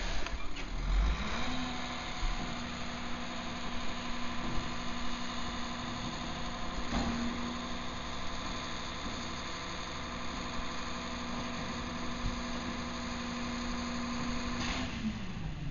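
Diesel engine of a CCC Integrated Rear Loader garbage truck running: it speeds up a second and a half in, holds a steady higher speed, then drops back near the end.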